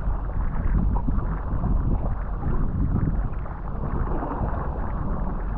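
Wind buffeting the microphone: a steady, gusty low rumble.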